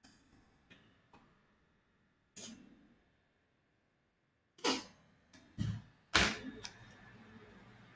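Short clicks and knocks from computer mouse and keyboard use, a handful spread out, the loudest about six seconds in, followed by a faint steady background noise.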